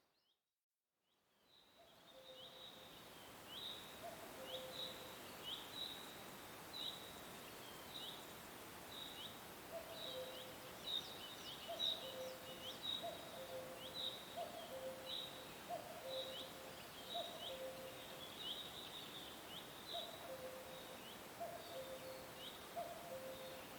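Nature soundscape that fades out to silence and fades back in at the start. Then steady background hiss carries repeated short, high calls that drop in pitch, about two a second. From a few seconds in, a lower two-note call repeats about once a second.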